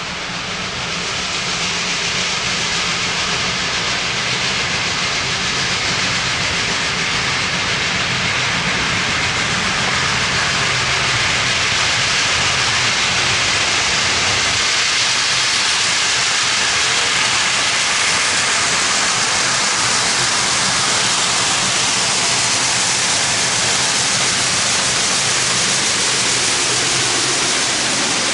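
Union Pacific 4014 Big Boy, a 4-8-8-4 articulated steam locomotive, passing with its train: a loud, steady hiss and rumble that builds over the first several seconds and then holds.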